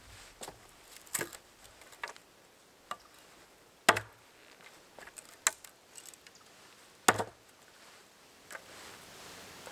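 A blade chopping into wood: several sharp, separate knocks at irregular intervals, the heaviest about four and seven seconds in.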